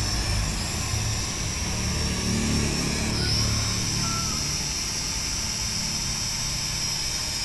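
S11 quadcopter drone hovering, its propellers and motors giving a steady high whine. The pitch dips briefly and comes back about three seconds in.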